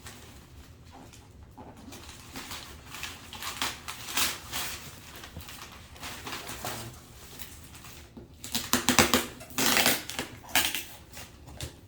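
A present's packaging being torn open and handled: irregular rustling, scraping and tearing noises, loudest in a burst about eight to ten seconds in.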